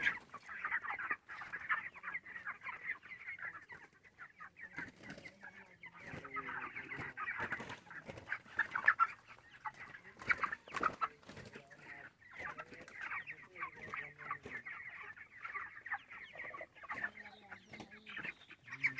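A large flock of broiler chickens cheeping and clucking together in a dense, continuous chatter, with a few short knocks mixed in.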